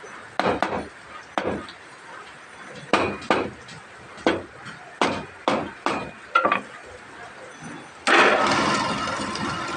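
About a dozen sharp, irregularly spaced knocks of striking on wood. About eight seconds in, a loud, even rushing noise starts abruptly and slowly fades.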